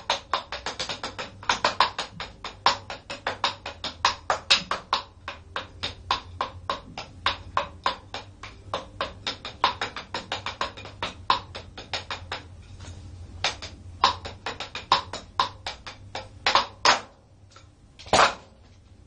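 Drumsticks playing a fast sticking routine on a practice-pad drum kit: quick, even strokes with regular louder accents. The run thins out, ends with a few loud hits, and one last single hit follows near the end.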